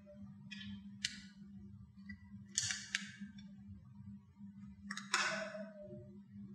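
Screwdriver turning screws in a small plastic switch housing: a few short scrapes and clicks, about half a second in, near three seconds and around five seconds, over a low steady hum.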